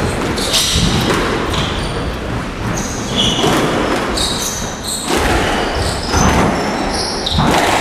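Squash rally: the ball is struck by the rackets and smacks off the court walls about once a second, while court shoes squeak sharply on the floor.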